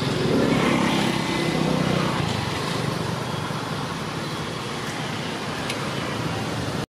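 An engine running steadily, a rough even noise with a fast low pulsing, somewhat louder in the first couple of seconds; it cuts off suddenly at the end.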